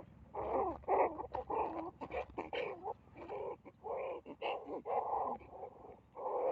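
Baby monkey crying out in a rapid series of short, pitched yelps, a dozen or so in a row, with a few sharp clicks between them.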